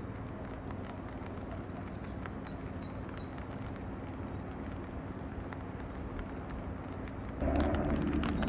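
Steady patter of rain with many light ticks, on which a small bird chirps a few times quickly about two to three seconds in. Near the end a louder low rumble sets in suddenly.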